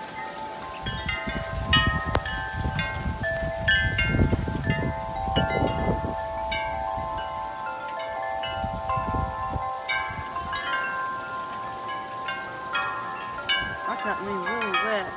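Metal tube wind chime struck over and over by strong storm wind, many irregular strikes whose tones overlap and ring on. Gusts buffet the microphone as a low rumble during the first half and briefly again later.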